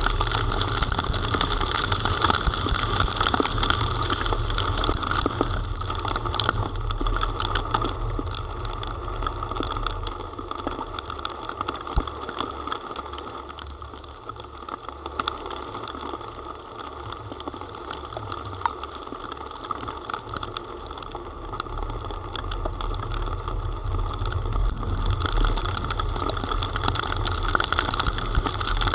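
Heavy rain pattering on a camera housing, with many small drop clicks over a steady low rumble of travel through a wet street. It eases off for a while in the middle and builds back up toward the end.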